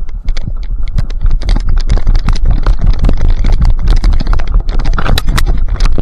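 Dense crackling, snapping and scraping of dry brush and twigs against a dog-mounted GoPro as a German Shorthaired Pointer pushes through thicket, with heavy rumbling knocks from the dog's movement on the camera. It jumps to full loudness about a third of a second in and stays loud and busy.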